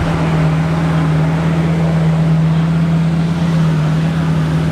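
A car engine idling steadily, a constant low hum with no revving.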